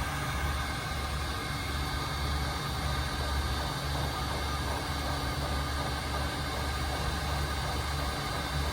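Steady low mechanical hum with an even hiss and a few faint steady whines above it, like a motor or fan running.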